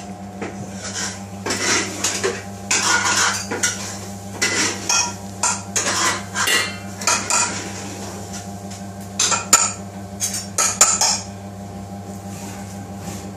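Dishes, pans and metal utensils clattering and knocking in irregular bursts, over a steady low hum.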